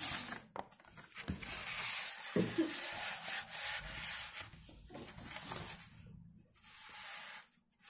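Paper question sheets being handled, turned over and slid across a polystyrene foam board: a long rustling and rubbing of paper with a short break near the end.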